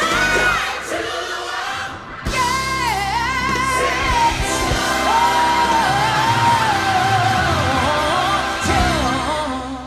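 Show soundtrack music: a solo voice singing a wavering, held melody over sustained instrumental backing, with a short break about two seconds in.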